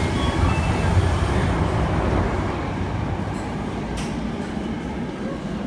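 Low, steady rumble of a subway train at an underground platform, easing a little after a couple of seconds. A single sharp click sounds about four seconds in.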